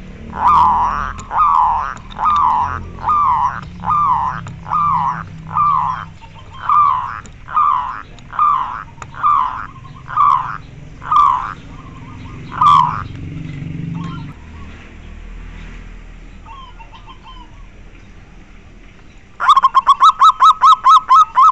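Zebra dove (perkutut) cooing: a long series of repeated notes, about one every 0.7 seconds, for some thirteen seconds. Near the end a fast run of about ten louder, sharper notes.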